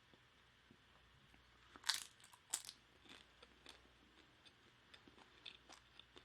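A person biting into crunchy food, with two loud crunches about two seconds in, then chewing it with soft crackles and clicks of the mouth.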